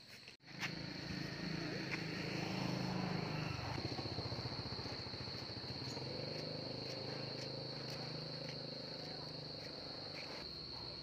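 A motorbike engine idling with a low, evenly pulsing rumble, a little louder for the first few seconds and then steady. A steady high cricket trill runs over it. The sound drops out briefly about half a second in.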